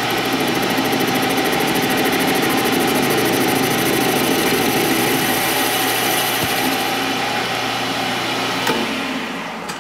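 Metal lathe running steadily while a boring bar takes a cut inside a steel tube held in a 4-jaw chuck, with a steady motor whine and cutting noise. Near the end there is a click and the lathe winds down.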